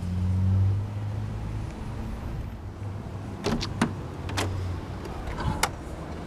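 Rear door of a 1950 Chrysler Crown Imperial limousine opened by its chrome handle: several sharp metal clicks of the handle and latch releasing as the door swings open. A low steady vehicle hum sits under it, loudest in the first second and fading out.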